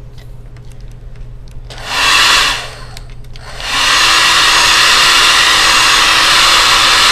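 Hand-held hair dryer: a few light handling clicks, then it is switched on for under a second about two seconds in and off again. Near the four-second mark it comes on for good and runs steadily, airflow hiss with a steady motor tone, drying alcohol off a cleaned laptop logic board.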